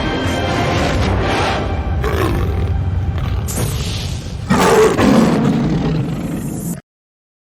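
Animal roaring and crying from a film soundtrack, loudest about five seconds in with a cry that falls in pitch, then cut off abruptly just before the end.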